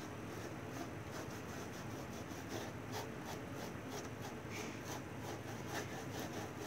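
Fingers spreading white glue over a gritty, textured foam model surface: faint, irregular scratchy rubbing strokes.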